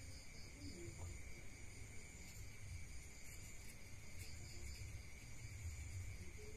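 Faint steady high-pitched chirring of insects such as crickets, with a few soft ticks from small objects being handled.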